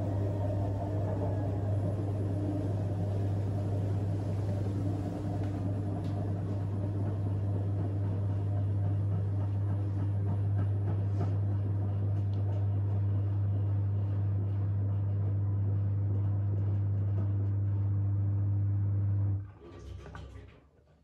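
AEG front-loading washing machine running its 1200 rpm interim spin: a steady hum with a strong low tone and no change in pitch. About nineteen seconds in it cuts off abruptly, followed by a brief short noise and then quiet.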